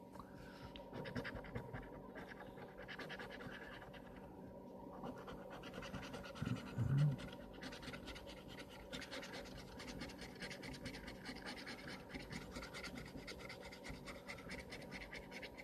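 Scratch-off lottery ticket being scratched, a fast, faint, continuous scraping as the coating is rubbed away. A short low hum comes about six and a half seconds in.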